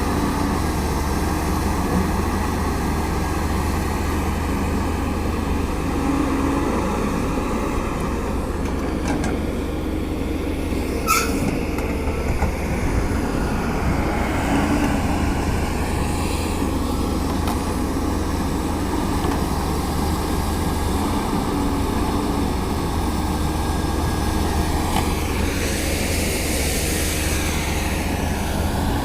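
Caterpillar 320D excavator's diesel engine running steadily under load, with the whine of its hydraulics rising and falling as it works. One sharp click about eleven seconds in.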